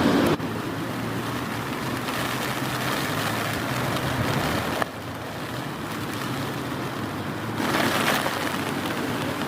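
Heavy rain with gusting wind, a steady rushing noise that drops abruptly about half a second in, shifts again near the middle, and grows louder toward the end.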